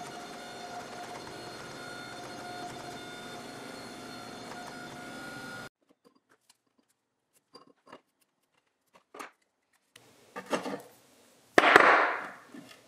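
Forge running with a steady rushing sound that stops abruptly about five and a half seconds in. Then pieces of steel bar are set down and slid on a steel workbench: a few faint clicks, then louder metal knocks and a scrape, the loudest shortly before the end.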